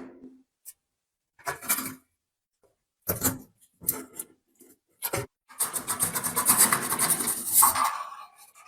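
Hand scraping or rubbing on a metal part: several short separate strokes, then a few seconds of fast, continuous rubbing.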